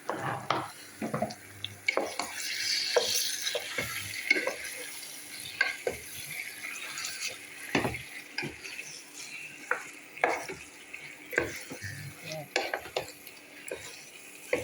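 A cooking utensil knocks and scrapes against a pan as chicken pieces are stirred into a simmering sauce, with irregular clinks throughout. A frying hiss swells about two to four seconds in.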